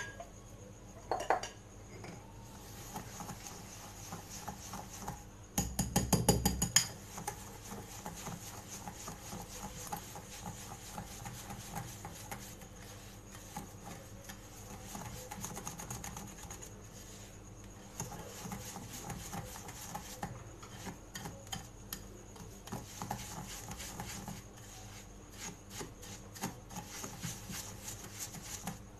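Butter and sugar being beaten by hand in a bowl: a utensil scrapes and clicks against the bowl over and over. About six seconds in there is a louder second of fast clicking.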